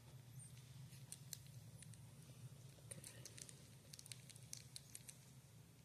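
Near silence: a steady low room hum with faint, scattered light clicks and ticks, most of them between about three and five seconds in.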